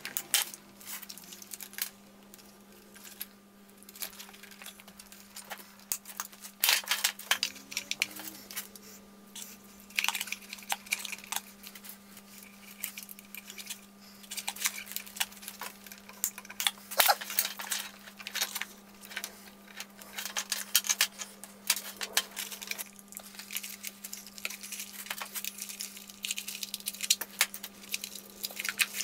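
Irregular small clicks, clinks and rustles of hands working wires and small parts into a robot chassis on a workbench, over a faint steady low hum.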